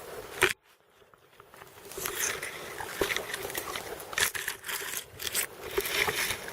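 Irregular rustling, scraping and crunching of close contact noise on the microphone. A sharp click about half a second in is followed by a second of near silence before the rustling resumes.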